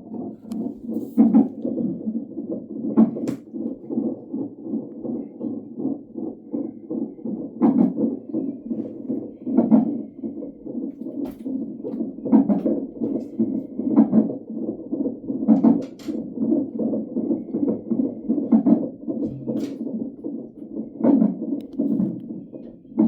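Fetal heart monitor (Doppler ultrasound) playing an unborn baby's heartbeat as a rapid, rhythmic whooshing pulse. Sharper, louder thumps break in every few seconds: the baby's hiccups.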